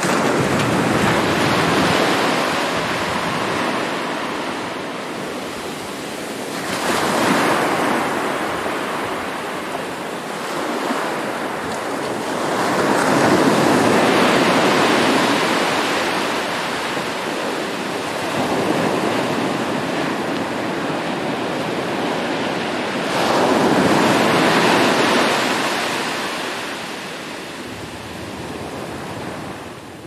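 Ocean surf: a continuous wash of waves breaking on the shore, swelling as each wave crashes about every six to ten seconds.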